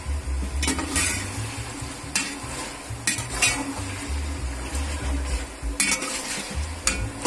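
Tuna pieces sizzling as they fry in hot coconut oil, stirred with a metal slotted spoon that scrapes and clinks against the pan about seven times.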